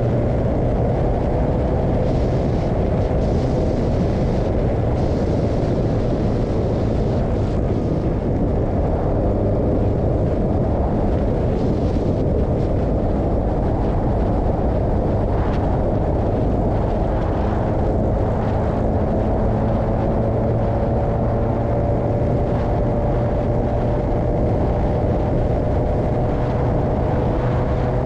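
Formula 2000 open-wheel race car's engine running at speed on track, heard onboard over heavy wind and road noise. The engine note drifts slowly down and back up rather than holding steady.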